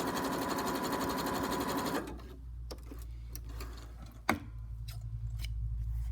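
Domestic sewing machine running at speed, stitching with a fast, even rattle, then stopping abruptly about two seconds in. A low hum, small handling clicks and one sharp click follow.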